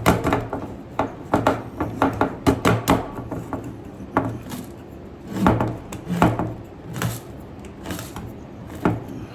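A cheap manual can opener cranked around the lid of a metal food can, cutting with irregular clicks and crunches that come in clusters with short pauses between turns.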